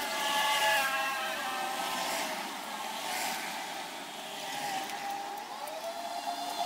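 A motor vehicle's engine running on the street, heard as a steady whine whose pitch rises about five and a half seconds in.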